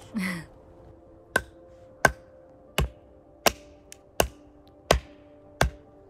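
Axe chopping into wood: seven sharp, even strikes about two-thirds of a second apart, none of them cutting through.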